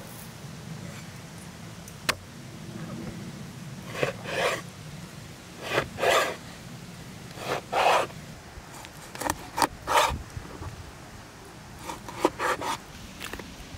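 Kitchen knife slicing through a raw catfish fillet on a wooden cutting board: short rasping strokes every second or two, some in quick pairs, starting about four seconds in, the blade scraping against the board.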